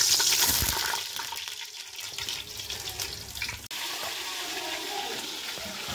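Sliced onion frying in hot oil in an aluminium pot, a loud sizzle that eases after about a second into a steady frying hiss.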